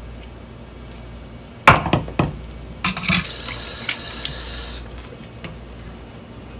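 A few sharp knocks in a kitchen sink, then the kitchen tap running for about a second and a half as hands are rinsed under it, and it shuts off abruptly.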